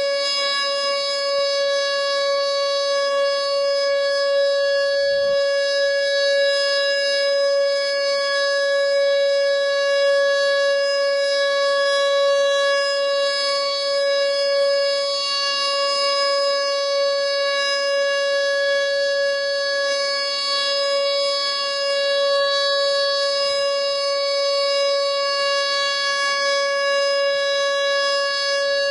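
Whelen WPS 2910 electronic outdoor warning siren sounding its steady alert tone: one held pitch with no rise or fall, swelling slightly in loudness now and then.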